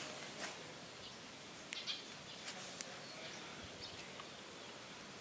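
Faint outdoor ambience: a thin steady high tone, with a handful of short chirps and ticks scattered through it.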